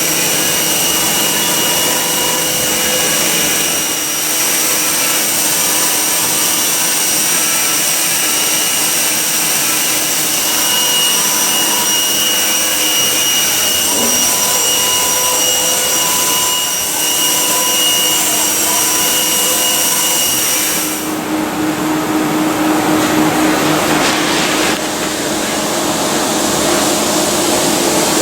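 XYZ 1020 vertical machining centre running under power: a steady hiss with several steady whines. About two-thirds of the way through, the high hiss and whines drop away and a rougher, lower hum takes over.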